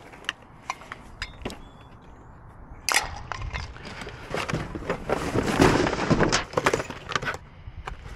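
Cardboard boxes and packaging being rummaged through by gloved hands in a dumpster: a few scattered clicks at first, then about three seconds in a sharp knock followed by steady rustling, crackling and light knocks as boxes are shifted and one is lifted out.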